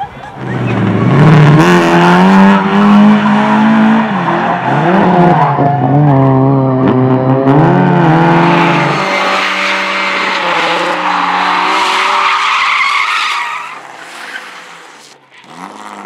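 Rally car engine revving hard, its pitch rising and falling through gear changes, then a long tyre squeal as a car slides on hard pavement, fading out near the end.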